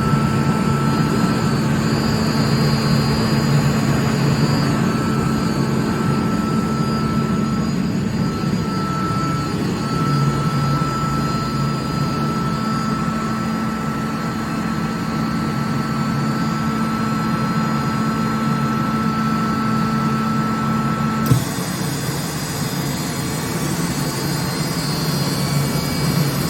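Atlas Copco GA11 FF 11 kW direct-drive screw air compressor running with a steady hum and whine. About three-quarters of the way through there is a click, the whine cuts off and the sound changes as the compressor stops compressing and runs on to cool down.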